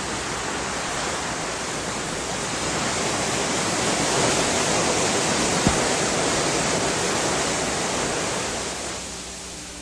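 Rushing water of a small forest waterfall: a steady, even rush that fades down near the end.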